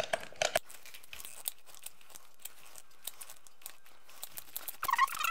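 Repeated clicks from a hand-pumped plastic batter dispenser as its trigger is pressed and the plunger pushes cake batter out into a metal mini-muffin pan. The clicks come quickly at first, then more sparsely, with a brief louder sound near the end.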